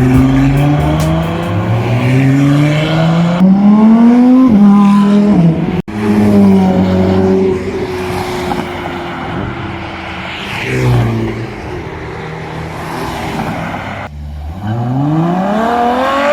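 Aprilia Dorsoduro 900's 90-degree V-twin engine heard on board, revving up through the gears: the revs climb for the first four seconds, drop at a gear change, run steadier through the middle with a short throttle blip, then climb hard again near the end.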